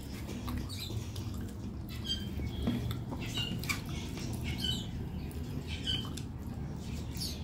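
Close-up eating sounds: chewing with many short wet mouth clicks and smacks, and fingers squishing rice and fish curry together on a plate. A steady low hum runs underneath.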